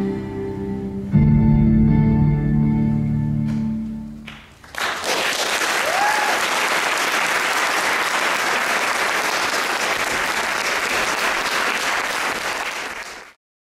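The last held chords of slow music fade out over the first few seconds; then an audience breaks into steady applause, which cuts off abruptly near the end.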